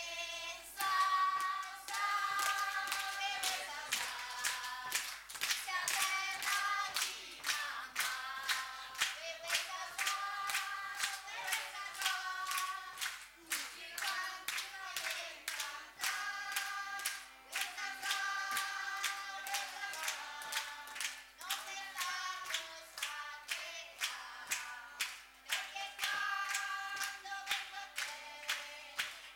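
Flamenco-style song with hand clapping (palmas) keeping a steady rhythmic beat under the singing voice.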